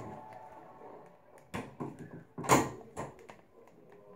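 A door being handled: a few knocks and clicks, the loudest a single thump about two and a half seconds in.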